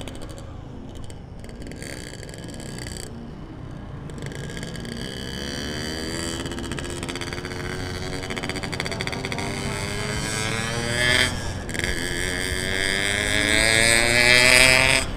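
Yamaha RX-King two-stroke motorcycle engine accelerating, its pitch climbing steadily. It breaks off briefly about eleven seconds in, then climbs again and grows louder toward the end.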